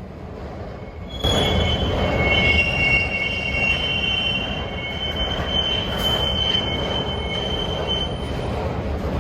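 Freight cars rolling through a rail yard, their steel wheels squealing against the rails in steady high-pitched tones over the rumble of the train. The sound comes in suddenly about a second in.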